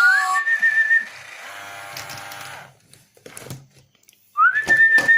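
Tekno Kitty robot cat toy making its electronic sounds: a tone glides up and holds for about a second, then a steady buzzing hum follows, then a few clicks. Near the end a second rising tone sounds over a run of knocks.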